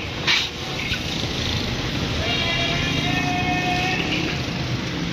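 Hot sand and black chickpeas pouring and sliding into a large iron roasting wok, then a metal scoop scraping and stirring through the sand, over steady background noise.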